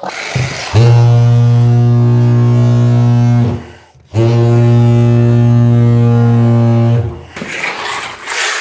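Handheld tile vibrator running in two bursts of a few seconds each, with a short pause between. It gives a loud, steady low hum.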